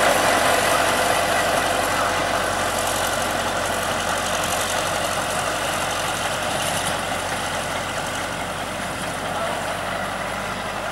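Diesel engine of a Caterpillar crawler bulldozer running steadily, growing gradually quieter.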